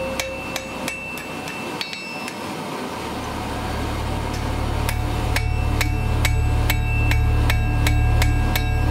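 Hand hammer striking red-hot steel held in tongs on a steel anvil, drawing out a tapered point. A few scattered ringing blows at the start, then a steady run of about three blows a second from about five seconds in, over a low hum that grows from about three seconds in.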